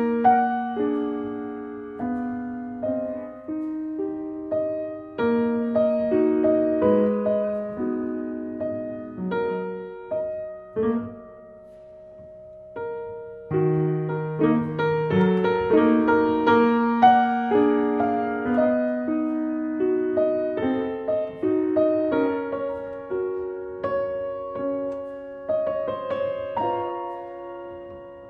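Piano music: a gentle melody of single struck notes that ring and fade, with a brief quieter lull about halfway through.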